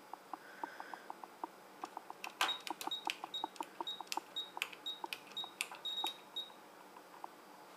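Keys pressed one after another on a PIC16F913 code lock's keypad, each press giving a click and a short high beep, about ten presses from about two and a half seconds in until six and a half seconds in. A faint, even ticking, about three a second, runs underneath.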